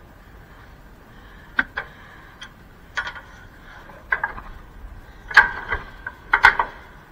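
Irregular sharp clicks and knocks, several in quick pairs and loudest near the end, over a faint steady hum.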